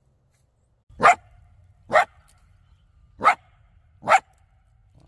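A coyote barking four times, short sharp barks about a second apart.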